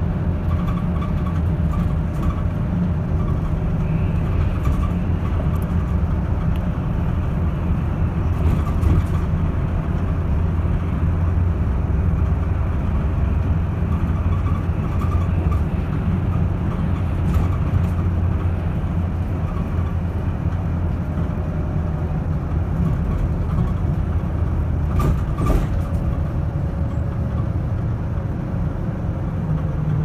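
Bus engine and road noise heard from inside the passenger cabin while driving: a steady low rumble with a faint whine, and two brief knocks, one about a third of the way in and one near the end.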